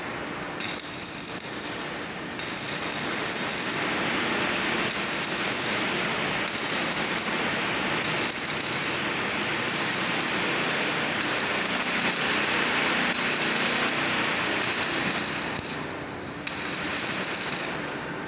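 Electric arc welding on a galvanized-iron cable tray: the arc gives a steady, dense crackling sizzle that dips briefly near the end.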